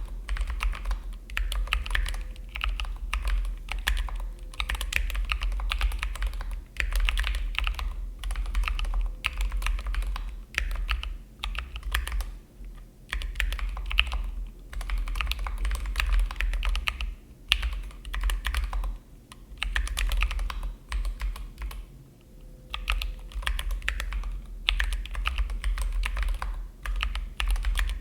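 Typing on a Sirius Uni660 split mechanical keyboard fitted with PBT SA-profile keycaps: quick runs of keystrokes broken by short pauses.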